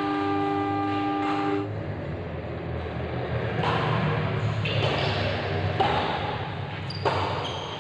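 Badminton rally: rackets striking a shuttlecock about four times, a second or so apart, in the second half. Before that, a steady multi-note tone sounds for the first second and a half and then stops.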